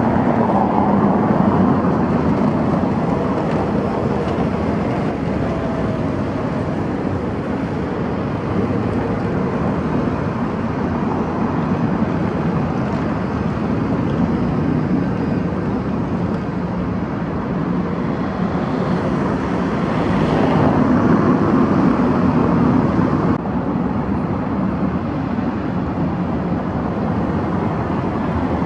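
Steady city traffic: cars passing close by on a paved road, the noise swelling as vehicles go past, loudest about two-thirds of the way in.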